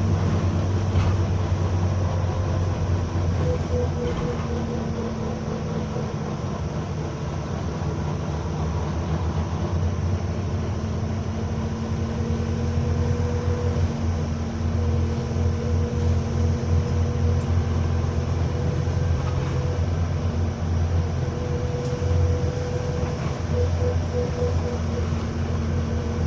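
Bus engine running with a loud, weird-sounding steady drone: a deep hum with a steady tone above it and a higher whine that fades in and out and pulses briefly now and then. This sound is heard only while the engine is on.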